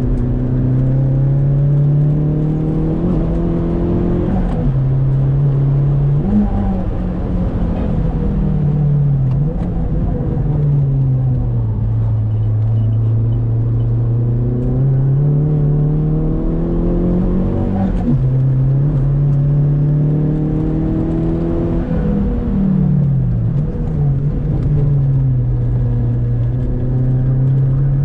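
Saab 9-3 Aero's engine heard from inside the cabin while lapping a race track: the engine note climbs slowly under throttle and falls away sharply several times, then climbs again.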